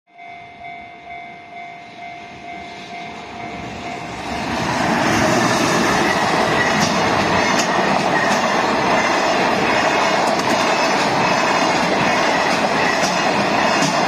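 Japanese level-crossing alarm ringing in a steady pulsing rhythm. About four seconds in, a container freight train hauled by an EF210 electric locomotive arrives and passes at speed: a loud, steady rumble of the wagons, with the wheels clacking over the rail joints.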